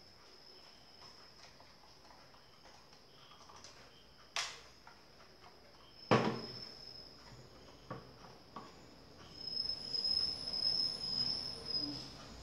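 A high, steady cricket-like trill that grows louder near the end, with two sharp clicks about four and six seconds in.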